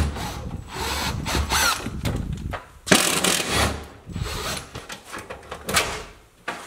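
Handheld power drill running in several short bursts.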